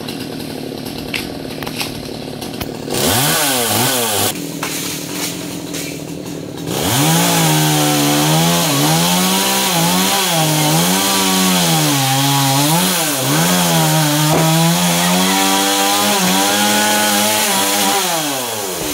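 Two-stroke chainsaw idling, briefly revved about three seconds in, then held at full throttle from about seven seconds with its pitch wavering under load as it cuts through coconut palm fronds, dropping back to idle near the end.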